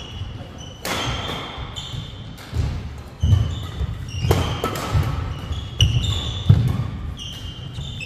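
Badminton doubles rally: sharp cracks of rackets striking the shuttlecock about once a second, with court shoes squeaking on the wooden floor and low thuds of footwork between the hits.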